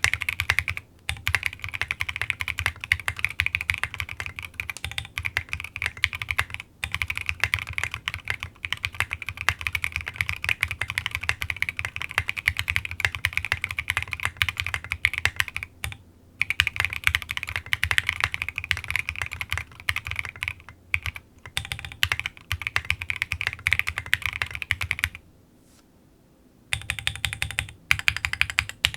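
Fast, continuous typing on a gasket-mounted GOK 7V mechanical keyboard with a polycarbonate plate, lubed and filmed Alpaca v2 linear switches and SA-profile keycaps: a dense run of rapid keystrokes with a brief pause near the end.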